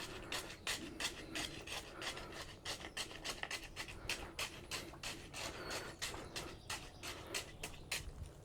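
Wet concrete being worked with a hand tool: rapid, evenly repeated scraping strokes, about three or four a second.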